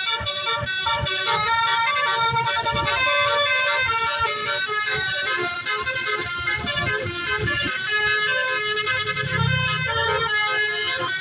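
Bus basuri (telolet) horn: a set of electric musical horns playing a tune of stepped, held notes, with low vehicle rumble underneath.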